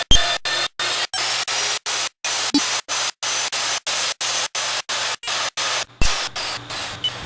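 AGP 35mm low-profile magnetic drill running, a loud hiss over a low motor hum, broken up by short regular gaps about four times a second, with a few sharp clicks.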